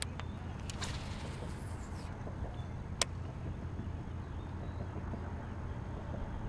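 A cast with a baitcasting fishing reel: a click as the spool is released, then the spool whirring as line pays out for about a second, sliding down in pitch as it slows, and a sharp click about three seconds in as the reel is engaged. A steady low rumble runs underneath.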